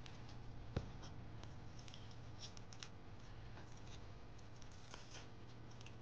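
Thin origami paper crackling and rustling in the fingers as it is folded and creased, with one sharp click about a second in. A faint steady low hum lies underneath.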